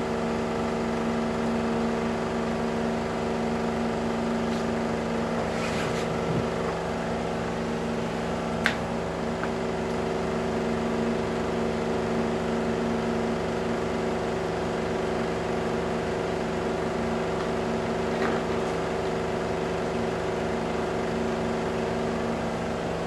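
Melag Vacuclav 31B autoclave running during its test cycle: a steady machine hum made of several steady tones. A single sharp click comes about nine seconds in.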